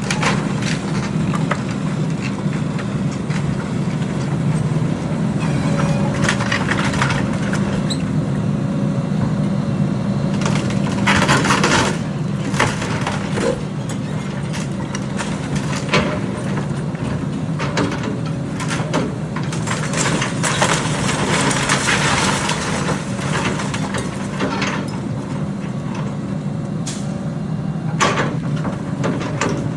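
Diesel engine of heavy construction machinery running steadily, with repeated cracking, splintering and crunching of wood, as when an excavator tears down a wooden building. The loudest stretches of crunching come about a third of the way in and again past the middle.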